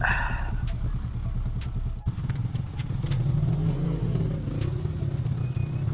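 Motorcycle engine idling with a steady low hum and a regular light ticking. A short burst of noise comes right at the start and a sharp click about two seconds in, after which the engine sounds a little stronger.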